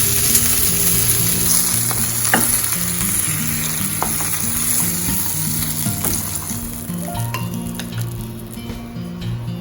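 Chicken pieces sizzling in oil in a frying pan, with a few light clicks of a utensil; the sizzle fades away over the last few seconds.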